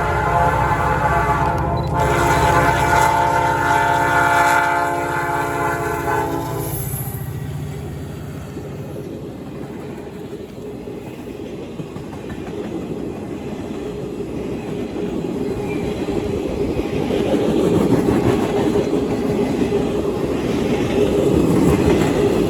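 Locomotive air horn blowing a long chord, with a brief break about two seconds in, cutting off about six seconds in. Then a passing train: rumbling wheels clacking over the rail joints, growing louder toward the end.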